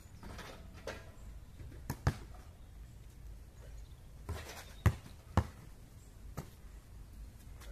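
Basketball shooting practice: the ball thumps on the asphalt court, rebounds off the hoop and is caught, making several separate sharp thuds. The two loudest come about half a second apart, roughly five seconds in.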